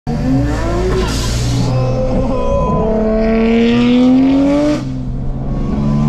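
Car engine accelerating hard, heard from inside the cabin. The revs climb, drop at a gear change about a second in, climb steadily again for several seconds, and drop at another shift near the end.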